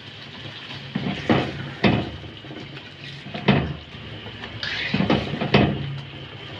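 A spatula scraping and knocking against a kadhai as beef pieces and yogurt are stirred and fried, about six knocks spread through, over a low sizzle.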